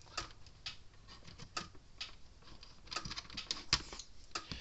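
Irregular light clicks and taps from handling small parts and tools on a workbench, a dozen or so in quick, uneven succession.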